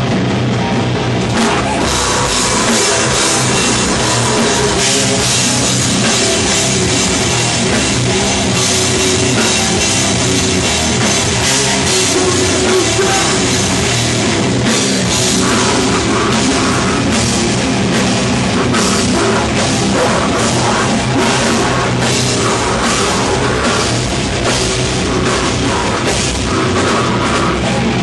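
A death metal band playing live: distorted guitars and bass over fast, dense drumming.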